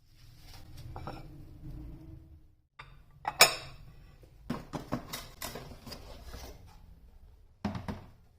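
Kitchenware clinking and knocking: a sharp loud clink about three and a half seconds in, a run of clinks and knocks after it, and another knock near the end, over a low steady hum.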